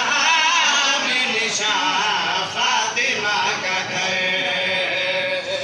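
Male voices chanting a devotional qasida in a melodic, sung style, with one long note held near the end.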